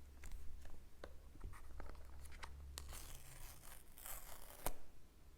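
Seal wrapping being torn and peeled off an iPhone 15 Pro Max box: scattered crackles and a tearing rustle, busiest about three to four and a half seconds in, with a sharp click near the end.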